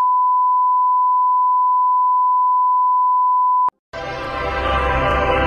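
Steady 1 kHz colour-bar test tone that cuts off suddenly near four seconds in; after a brief silence, music with a low bass starts.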